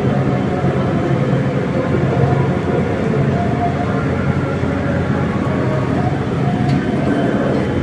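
Whoosh high-speed electric train rolling slowly alongside the platform as it pulls in, a steady low hum and rumble.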